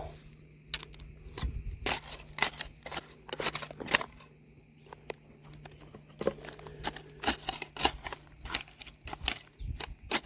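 Scraping and scratching in gravelly dirt while digging: a run of quick, irregular scratches and clicks, easing off for a couple of seconds midway.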